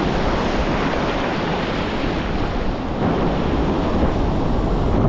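Ocean surf breaking and churning in shallow white water, with wind buffeting the microphone as a steady low rumble.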